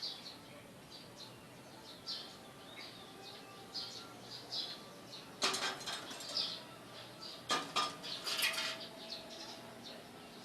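Small pet bird chirping over and over in short, high calls, with two bursts of wing flapping, one a little past halfway and one about 8 seconds in.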